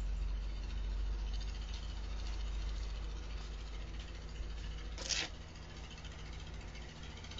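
Yanmar 4TNE88 four-cylinder diesel engine of a 20 kVA generator running steadily with a low hum. A short hiss about five seconds in.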